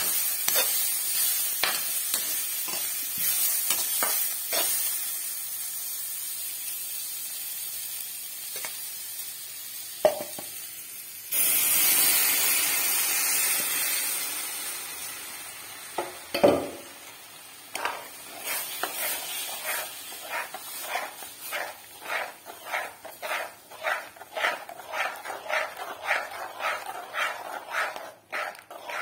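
Radish slices and greens sizzling in a hot metal kadai while a spatula scrapes and turns them. About eleven seconds in, a sudden loud hiss as the curd mixture for the kadhi is poured into the hot pan; it fades over a few seconds. Then a spatula stirs the liquid kadhi in a steady rhythm, about two strokes a second.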